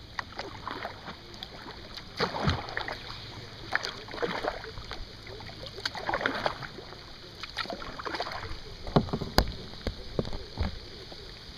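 Kayak paddle strokes: the blades splashing into the water about every two seconds. A few sharp knocks near the end.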